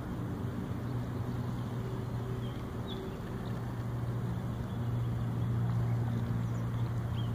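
Steady motor drone from an unseen engine, a low even hum that swells slightly in the second half, with a few faint short high chirps over it.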